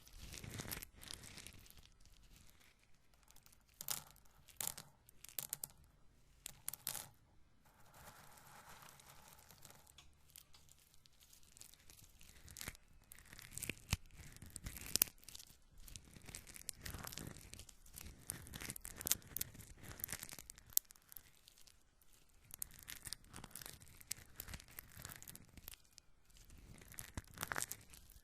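Roasted corn kernels rubbed and handled close to the microphone: crisp, dry crackling and rustling in irregular bursts, quieter for a few seconds in the middle.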